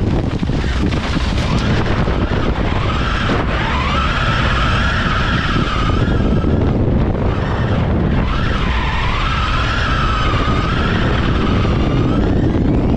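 Onboard sound of an electric rallycross car racing flat out on dirt. The drive motors' high whine climbs and dips twice with speed, over a steady loud rush of tyres on loose dirt and wind.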